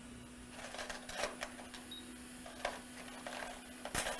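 Hot air rework station's blower running with a steady hum while heating a capacitor off a laptop logic board. Scattered light clicks of metal hand tools being picked up and handled sound over it.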